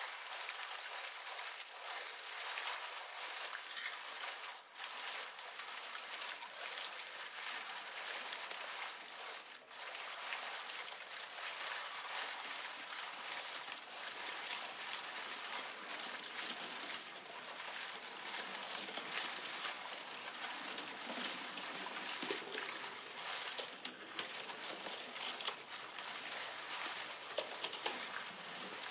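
Dense, continuous high-pitched crackling and crinkling from a recording of thawing pond ice sheets cracking and breaking, computer-processed into a sound collage.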